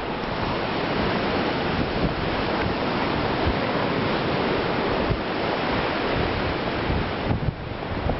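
Steady wind rushing and buffeting against the microphone, mixed with the sound of sea surf.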